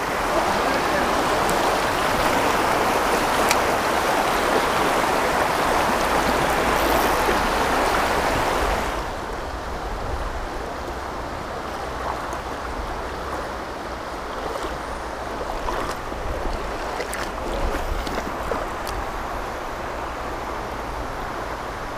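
River water rushing over rapids in a steady roar; about nine seconds in it changes abruptly to the quieter, gentler flow of a shallower stretch.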